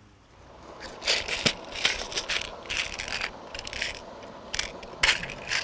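A hand rummaging through a small plastic compartment tackle box: a string of plastic clicks, rattles and scrapes, starting about a second in.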